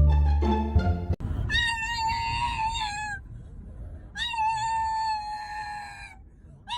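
Cat yowling: two long drawn-out calls of about two seconds each, with a third starting near the end. Music cuts off about a second in.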